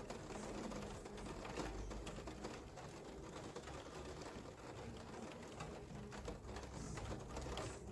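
Rain pattering as a dense run of small, quick drips over a low steady rumble.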